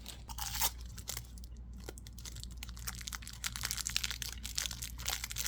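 Soft candy's wrapper crinkling and tearing as it is unwrapped: irregular crackles and rustles.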